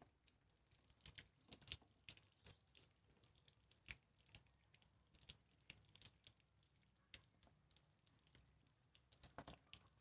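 Near silence with faint, irregular small clicks and taps scattered throughout, a few more close together near the end.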